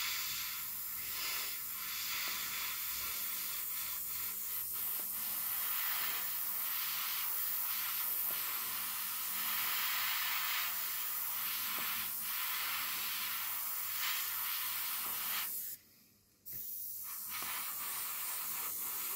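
Airbrush (Fengda FA-180X, 0.3 mm nozzle) spraying thinned acrylic paint in a test pass: a steady hiss of air and paint mist. It cuts off briefly about three-quarters of the way through, then resumes.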